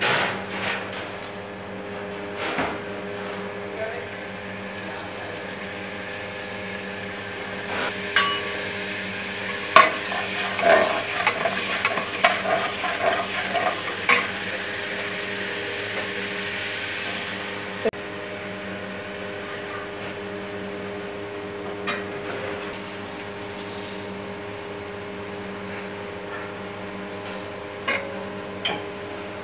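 Hot oil sizzling in a large aluminium pot as whole spices are cooked, with a ladle scraping and clanking against the pot in a busy run of strokes partway through and a few single knocks later. A steady hum sits underneath throughout.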